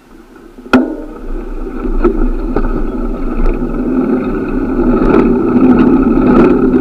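Riding noise from a moving bicycle: a sharp knock about a second in, then a loud rumble of tyre and wind noise with a steady low hum that grows louder over several seconds, with scattered small clicks.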